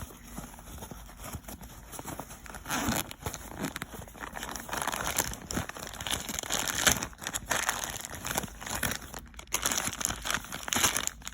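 Rustling and crinkling of things being rummaged through and pulled out of a bag, in irregular handling bursts, the loudest about three and seven seconds in.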